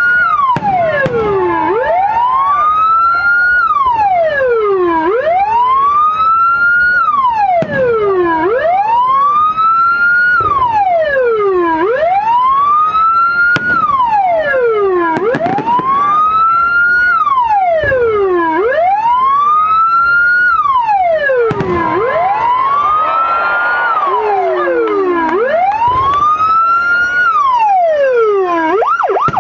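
Electronic escort siren, a 9–12-tone siren module driving a 10–15 W TOA horn speaker, sounding a slow wail: each cycle rises for about two seconds and falls for about one and a half, over and over. Right at the end it switches to a fast yelp.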